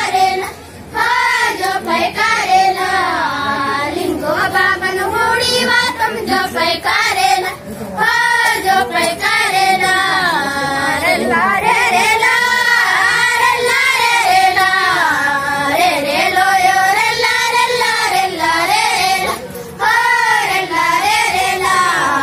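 A group of young girls singing a Gondi rela pata (rela song) together in unison, one phrase after another with short breaks between phrases.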